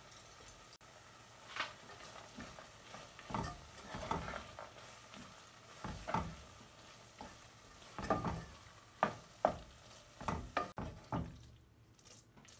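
Wooden spatula stirring and scraping a thick grated-pumpkin halwa around a nonstick pan, in irregular strokes, with the mixture sizzling faintly underneath.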